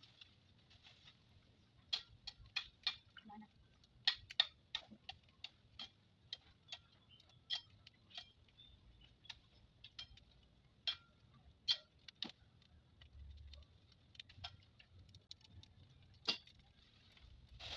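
Small open wood fire crackling, with irregular sharp pops and snaps, a few louder than the rest.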